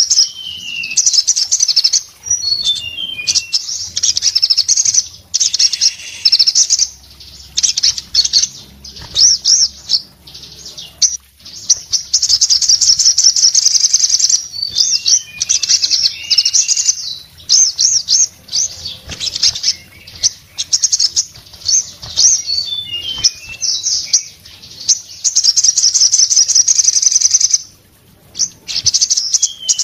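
Olive-backed sunbird singing hard: loud, very rapid high trills, some held for several seconds, broken by short runs of falling chirp notes, with hardly a pause.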